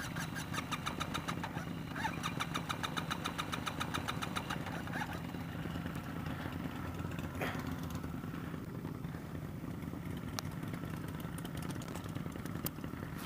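Scooter's electric starter cranking the engine, a fast even chugging for about five seconds, without the engine catching. A steady low engine hum runs underneath.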